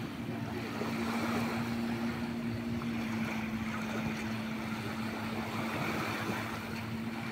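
Motorboat engine towing a parasailer, a steady drone with no change in pitch, over a haze of wind and small waves.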